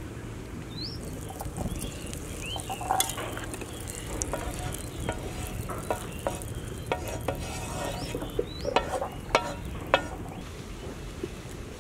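Butter melting and sizzling on a hot griddle pan over a wood fire, with a wooden spatula scraping and spreading it across the pan; frequent small pops and clicks throughout.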